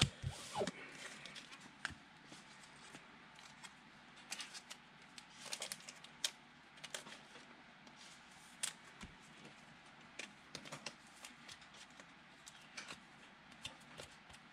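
Faint, irregular clicks and soft rustles of football trading cards being handled and shuffled.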